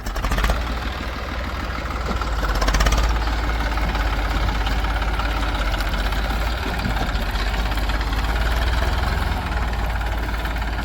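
Diesel engine of a backhoe loader or farm tractor running steadily with a low rumble, swelling briefly about three seconds in.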